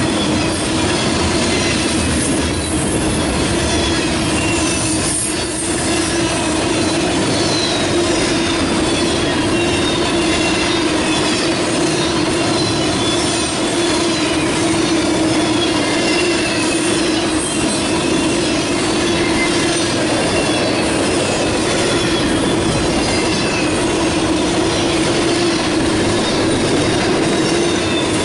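Intermodal freight train cars rolling past at close range: a steady, loud rumble of steel wheels on rail, with short high wheel squeals now and then over the top.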